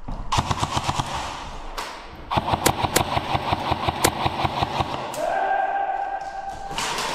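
Electric airsoft guns firing full-auto: fast rattling bursts of shots, two runs in quick succession with sharper snaps about three a second in the second. Near the end, a steady high whine lasting about a second and a half.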